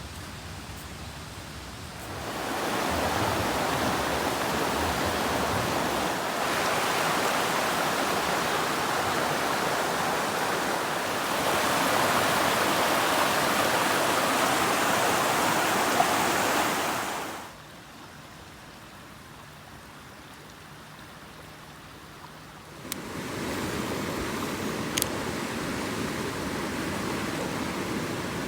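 Rushing water of a mountain stream, a steady hiss that jumps abruptly louder and softer several times, dropping off sharply about two-thirds of the way through and coming back near the end.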